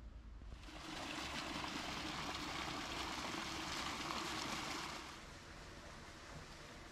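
Water jets of a small fountain splashing steadily into a shallow pool. The splashing starts about half a second in and cuts off about five seconds in, leaving faint background noise.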